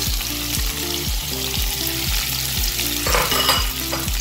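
Diced carrots, onions and sausage sizzling in hot olive oil in a frying pan as the carrots are tipped in, the sizzle surging louder about three seconds in. A low, evenly repeating beat runs underneath.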